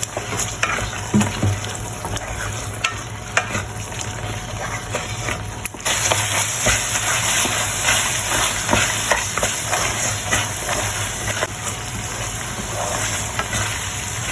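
Sambal sizzling and frying in a pan while a spoon stirs it, with frequent short scrapes and taps against the pan over a steady hiss. The sizzle turns louder and brighter about six seconds in.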